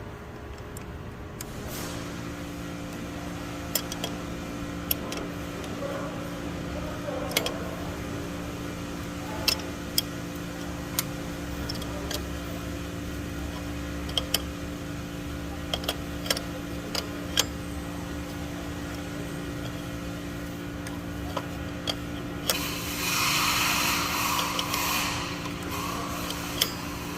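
Irregular sharp metallic clicks of a wrench working the draw-through nut of a power steering pulley installer tool, over a steady hum that sets in about two seconds in. A louder rushing noise lasts about three seconds near the end.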